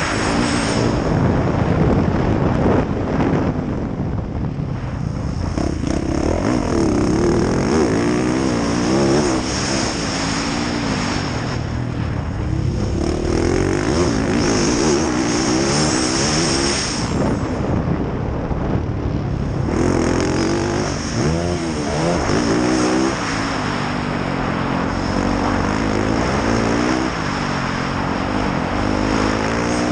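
A 2019 Yamaha YZ450F's single-cylinder four-stroke engine being ridden hard on a motocross track, revving up and falling back again and again as the throttle is opened and shut. It eases off briefly a few times.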